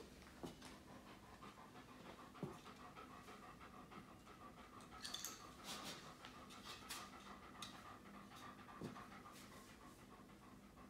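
German shepherd panting softly, with a few faint knocks as the plastic pipes are handled and set down on the floor mats, mostly in the first few seconds.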